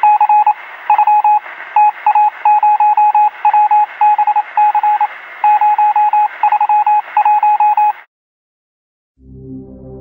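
Rapid electronic beeps in irregular groups, one steady tone over a hiss, heard through a narrow telephone-like band; they cut off suddenly about eight seconds in. Low music fades in about a second later.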